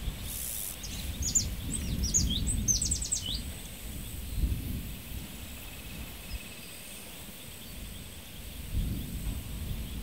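Countryside field ambience: wind gusting on the microphone as a low rumble, with a bird giving a quick run of high chirps about a second in that lasts around two seconds.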